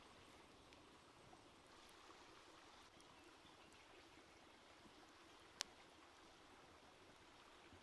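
Near silence: the faint steady rush of a stream, with one sharp crackle from the wood fire about five and a half seconds in.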